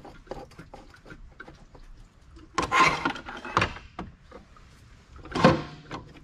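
Hand tools clicking and knocking against engine parts while the water pump and thermostat housing of a BMW E46 M3 are worked loose. Two louder rough scraping noises come through, one about a second long roughly two and a half seconds in and a shorter one near the end.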